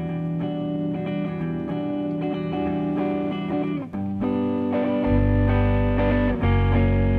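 Hollow-body electric guitar playing ringing chords that change about four seconds in. Deep bass notes join about a second later.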